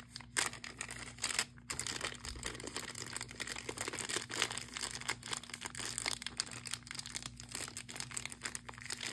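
Clear plastic packaging bags crinkling and crackling as they are handled, in dense irregular crackles throughout.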